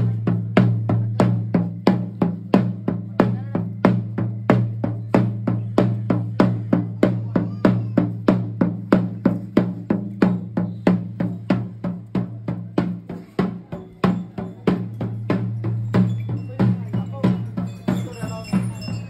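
Drum-led music with a steady beat of about three strokes a second over a low, steady drone, with a few high ringing tones near the end.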